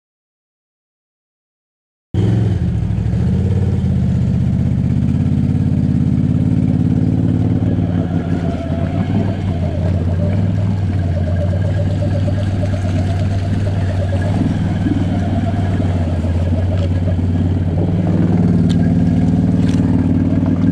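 Dead silence for about two seconds, then the Can-Am Outlander 850 XMR ATV's V-twin engine running steadily, its pitch rising slightly near the end.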